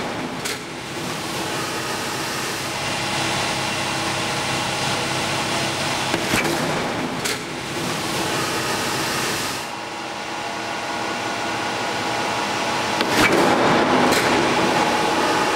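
Steady rushing noise from the wall-test chamber's pressure and water-spray equipment, with a few sharp clicks and a slight rise in level near the end.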